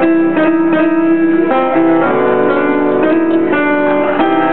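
Grand piano played solo: the opening chords of a ballad, notes struck and held in a slow, steady pattern.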